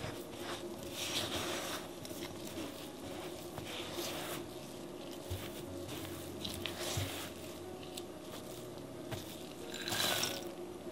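Silicone spatula scraping, folding and pressing crumbly cocoa cookie dough against a glass mixing bowl in irregular strokes. Near the end, chopped pecans are poured into the bowl in a brief rattling clatter.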